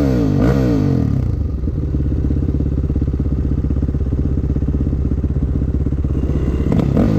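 Dirt bike engine running steadily at low revs, with rising and falling revs in the first second and a short rev again near the end as the bike moves off.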